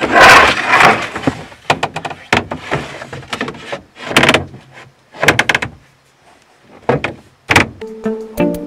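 Campervan's wooden bunk panels being slid out on their rails to form a top bunk: a loud scraping slide at the start, then a series of knocks and clatters as the panels are pushed into place.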